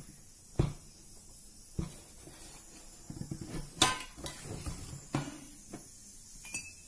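Stainless steel container lid being handled and lifted off: a few separate metal clinks and knocks, with a cluster of rattling about three to four seconds in that holds the loudest clank.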